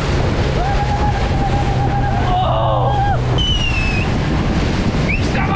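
Speedboat running fast over choppy water, with its engine droning, spray, and wind buffeting the microphone. A passenger lets out a long whoop that starts about half a second in and falls away near the middle, and there are short rising shouts near the end.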